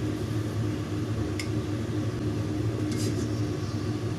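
Steady low mechanical hum of kitchen equipment running, with two faint light clicks about a second and a half and three seconds in.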